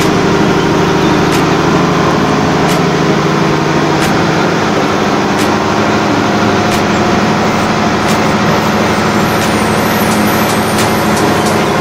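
Mitsubishi 6D15 inline six-cylinder diesel engine of a generator set running steadily at constant speed on its newly fitted, freshly calibrated injection pump.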